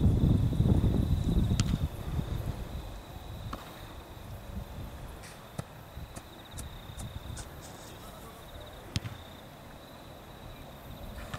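Insects trilling steadily at a high pitch. Low wind rumble buffets the microphone for the first two seconds, and a few faint sharp knocks are heard, one about a second and a half in and another near nine seconds.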